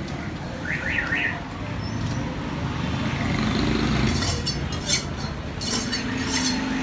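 Fish cutter's long knife drawn in several quick scraping strokes across a stone block to sharpen the blade, with one sharp knock about five seconds in, over steady market and traffic noise.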